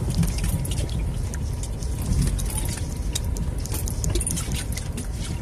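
Vehicle driving slowly over the rocky bed of a creek crossing, heard from inside the cab: a steady low engine and road rumble with many sharp rattles and clicks as it jolts over the stones.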